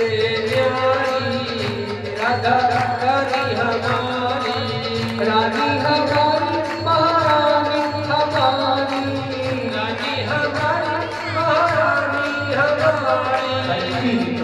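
Male voice singing a Hindi devotional bhajan to Radha, with a steady held drone and a regular drum beat underneath.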